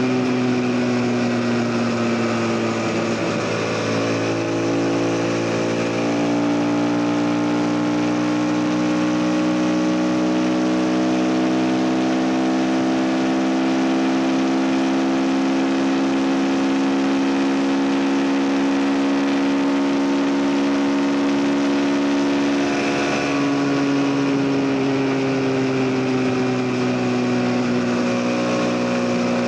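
CF Moto NK 250's single-cylinder engine pulling on the move, its pitch climbing slowly for most of the stretch, then changing about three-quarters of the way through and easing down, with wind and road noise underneath.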